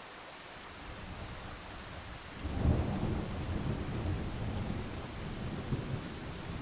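Thunder over steady rain. A low rumble builds about a second in, then a louder peal breaks about two and a half seconds in and keeps rolling.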